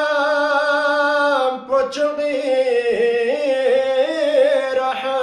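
A man singing a Balti qaseeda, a devotional chant, solo. He holds one long wavering note, breaks off briefly about a second and a half in, then goes on in a winding melody.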